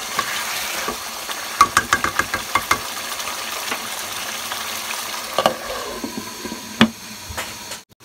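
Pieces of duck sizzling in oily spice paste in a pot, with no water added yet, while a wooden spatula stirs and knocks against the pot. A quick run of clicks comes about one and a half to three seconds in, and two louder knocks follow later. The sound cuts out briefly just before the end.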